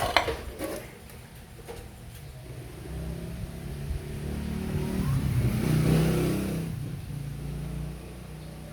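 An engine running, its sound building over a few seconds to a peak about six seconds in and then easing off, after a few sharp clicks at the very start.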